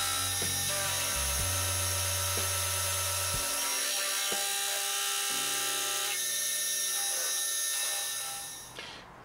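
Small benchtop milling machine running, its end mill cutting aluminum with a steady high whine and little chatter, under background music with bass notes that change every couple of seconds. Both fade out near the end.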